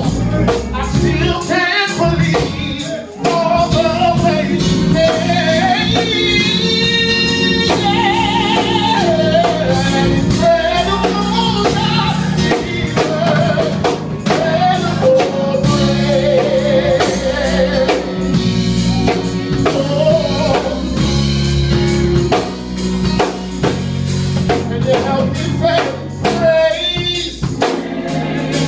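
Gospel music: sung vocals over a drum kit and other instruments, with a steady beat.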